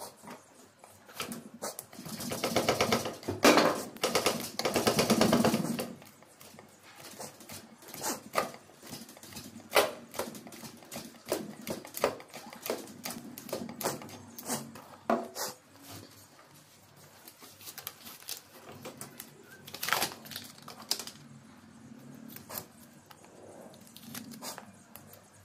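Hand sanding and rubbing on the willow blade of a cricket bat: about two seconds in, a few seconds of fast rasping strokes, then scattered taps and short scrapes as the surface is worked over.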